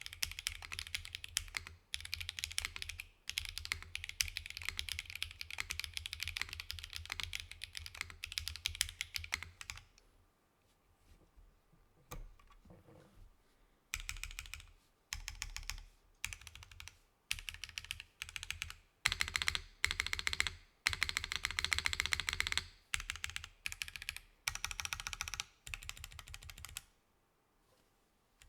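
Sagittarius 70 prototype mechanical keyboard with K01 switches and GMK Black & Gold keycaps, gasket-mounted on an aluminium full plate with no foam, being typed on. Fast continuous typing for about ten seconds, a pause of a few seconds with only a few faint taps, then typing in short bursts with brief breaks, stopping near the end.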